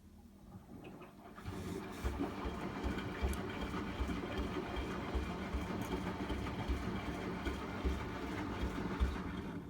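Hotpoint washing machine drum turning during a wash cycle, the wet load tumbling with soft low thumps about twice a second. It starts about a second in and stops abruptly near the end.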